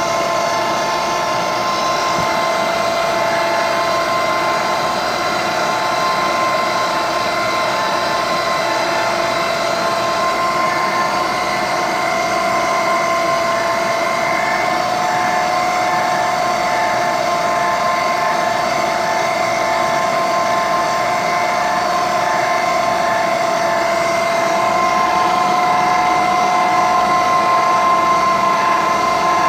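Microcut Model 837 vertical milling machine's variable-speed head, driven by a 3 hp motor, running with the spindle turning and the power quill feed engaged: a steady mechanical whine with several held tones.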